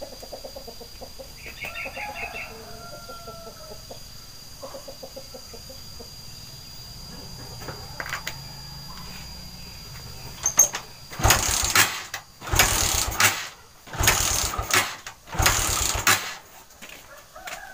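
Suzuki Shogun 125 single-cylinder engine being kick-started four times in a row, each kick spinning it over for under a second without it firing: when hot it has no ignition spark, which the mechanic puts down to a weak or dead pulser (pickup coil). Chickens cluck faintly before the kicks.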